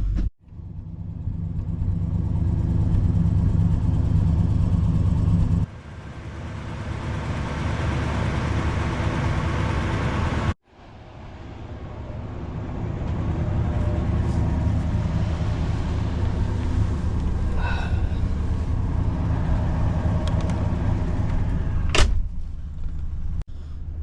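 1977 Ford LTD's V8 engine idling with a steady low rumble while it warms up so coolant starts running through the lines. A single sharp click comes about two seconds before the end.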